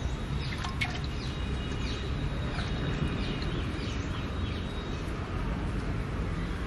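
Many small birds chirping in short scattered calls over a steady low rumble.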